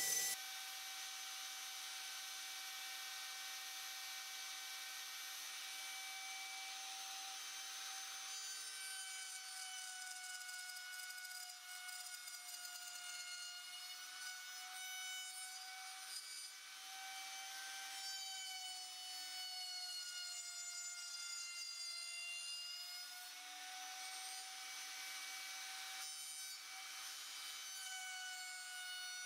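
Electric trim router running at speed, its bit cutting into a pine slat: a steady high whine over the hiss of the cut, the pitch sagging slightly now and then as the bit takes load.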